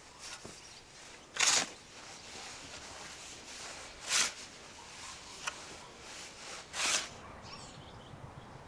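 Shovel digging into garden soil: the blade cuts in and turns the earth with a gritty scrape three times, about every two and a half seconds, with a sharp click between the second and third strokes.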